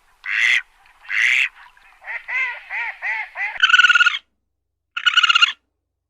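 Farmyard poultry calling: three short harsh calls, then a quick run of five small calls, then two longer rasping, pulsing calls in the second half.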